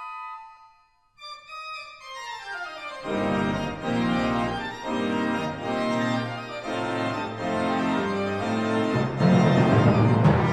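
Pipe organ solo with a full orchestra silent: fast running figures on the manuals, joined about three seconds in by a deep pedal bass under repeated chords. It follows a brief pause after a short orchestral chord fades. Near the end a percussion roll swells up toward the brass entry.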